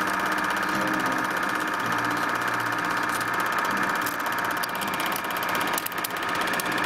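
Cine film projector running: a steady mechanical whirr with a fast, even clatter.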